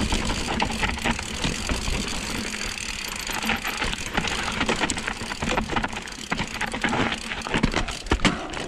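Mountain bike riding down a steep, rough dirt trail: tyres crunching on dirt and the bike rattling and knocking over bumps, over a steady low rumble. The clicks and knocks come thicker in the last few seconds.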